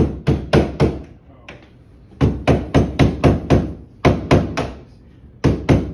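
Hammer blows in quick runs of about three to four strikes a second, with short pauses between the runs and two final blows near the end.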